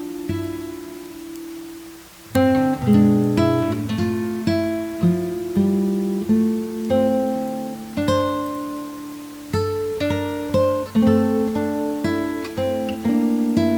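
Guitar music played by plucking: a chord rings and fades out, then about two seconds in a melody of separately picked notes starts and carries on.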